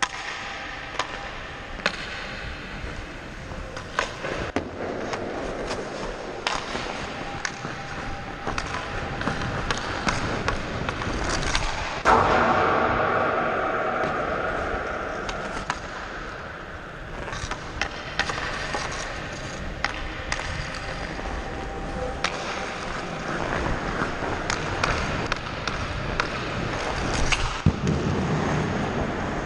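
Ice hockey skate blades gliding and scraping on rink ice, heard from the skater's helmet, with frequent sharp clicks and taps of stick and puck. A loud hit about twelve seconds in is followed by a few seconds of louder rushing noise.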